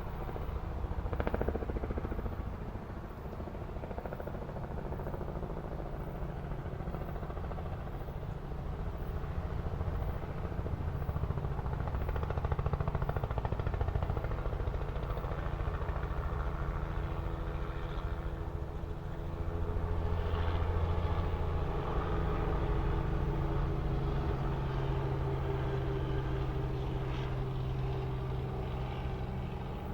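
Helicopter circling overhead: a steady low drone of rotor and engine with a rumble underneath, swelling a little in loudness as it passes.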